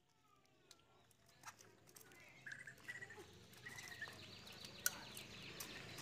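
Faint short calls of a caged white-crested laughingthrush, some of them falling notes, with a few light clicks.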